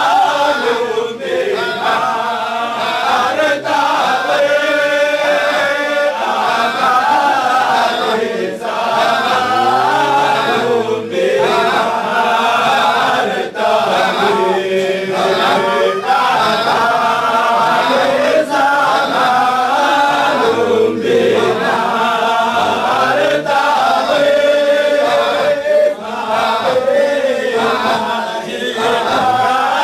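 Group of men chanting Sufi dhikr in unison, a short phrase repeated over and over about every two and a half seconds.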